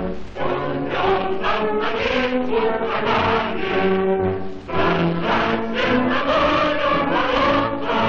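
Choir singing with musical accompaniment, voices holding and changing notes in a steady flow.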